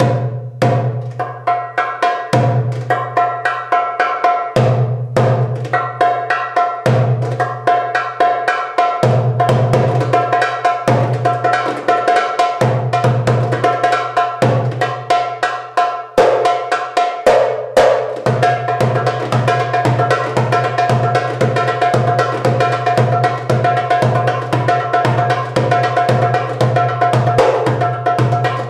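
Solo on a metal-bodied darbouka (goblet drum). Deep ringing doum strokes land about every two seconds, filled with rapid, bright tek and ka strokes and rolls. A little past halfway the doums come faster, two or three a second, under continuous fast strokes.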